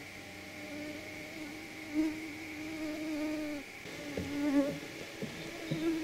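A flying insect buzzing close to the microphone. Its drone wavers in pitch and loudness as it moves about, breaks off briefly a little past halfway, then comes back louder. A faint steady high drone runs underneath.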